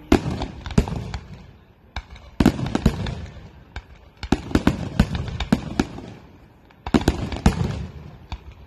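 Aerial firework shells bursting in quick volleys of sharp bangs and crackling, in about four clusters with short lulls between them.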